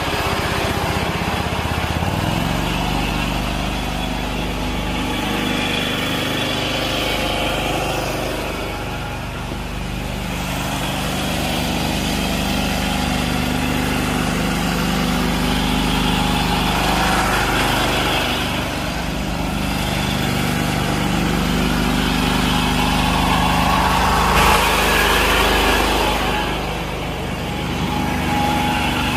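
Small engine running steadily, with a noisier rattle higher up that swells and fades.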